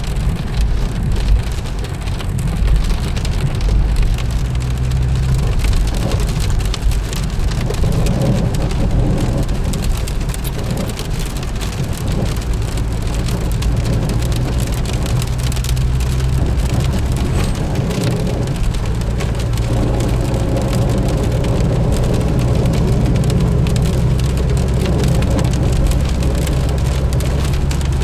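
Heavy rain falling on a moving car's roof and windscreen, heard from inside the cabin as a dense, steady patter over the low rumble of the car and its tyres on the wet road.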